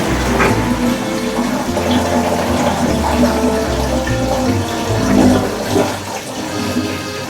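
Water churning and splashing inside a Toshiba ZABOON top-loading washing machine as it washes a load, with a low rumble underneath.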